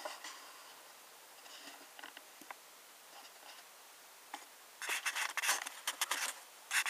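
Near-quiet room tone with a few faint ticks, then from about five seconds in a run of scratchy rubbing and rustling handling noise that is loudest near the end.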